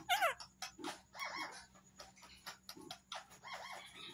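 Indian ringneck parakeet's beak clicking and scraping as it nibbles at a person's fingernails, a rapid irregular series of small ticks, with a quick falling chirp at the start and a few short soft bird chirps in between.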